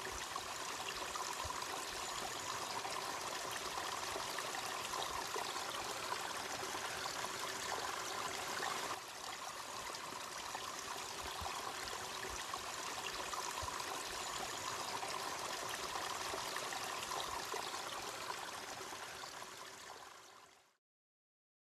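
A small forest stream trickling and splashing over rocks, a steady rushing sound that fades out near the end.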